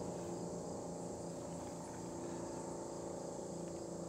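Steady insect chorus, an even high-pitched drone, over a faint low steady hum.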